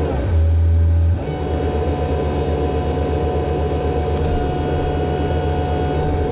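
A Volvo excavator's diesel engine and hydraulic pump running steadily with a high whine over a low hum, heard from inside the cab. Just after the start the whine dips and a deep hum swells louder for under a second, then it settles back.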